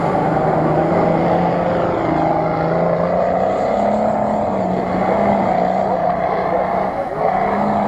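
4x4 off-road vehicle's engine running hard at high revs as it churns through deep mud, its pitch shifting up and down several times.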